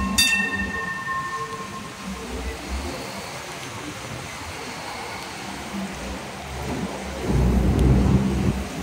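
Hong Kong Light Rail Phase 5 vehicle passing close by on a curve, its running gear rumbling with a steady motor hum. A ringing warning signal sounds right at the start and fades over a second or so. A louder low rumble comes near the end.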